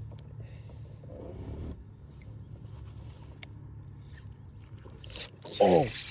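Splash of a bass striking a topwater lure near the end, under a shouted 'Oh!', over a steady low hum.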